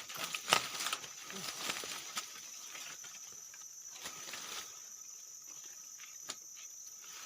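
Steady drone of forest insects, with a few sharp clicks and taps over it, the loudest about half a second in and another near the end.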